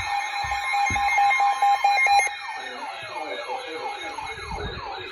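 Several weather alert radios sounding their tornado-warning alarms together. A rapidly pulsing beep stops a little over two seconds in, while warbling, siren-like rising and falling sweeps keep going.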